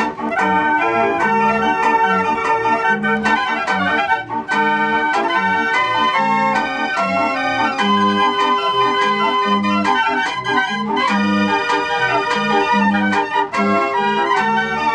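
56-key Dutch street organ playing a tune on its pipes: a bright melody over a steady, regularly repeating bass and chord accompaniment.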